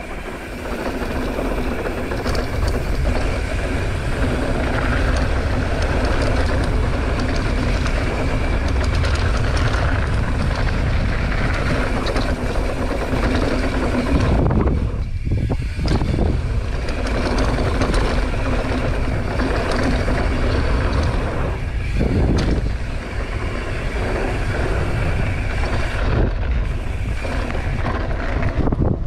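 Wind rushing over an action camera's microphone, with mountain bike tyres rolling and rattling on a dirt trail during a fast descent. The noise drops out briefly about halfway through and again about three quarters of the way in.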